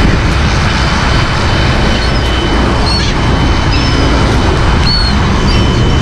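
A flock of gulls giving short, high, curving cries, several of them scattered through, over a loud, steady rumble and rush of noise.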